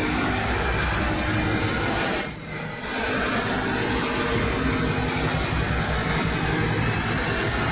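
Class 56 diesel locomotive's Ruston-Paxman V16 engine working as it pulls away slowly with a heavy freight train, a steady low, pulsing throb. A brief louder moment with a short high beep comes about two and a half seconds in.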